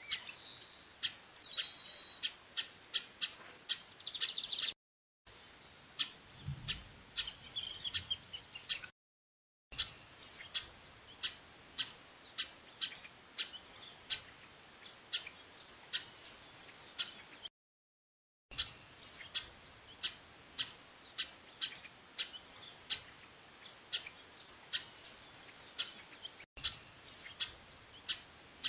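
Female chestnut-capped blackbird calling: short, sharp call notes repeated over and over, about two a second. A steady high-pitched insect whine runs underneath. The sound cuts out to silence briefly three times.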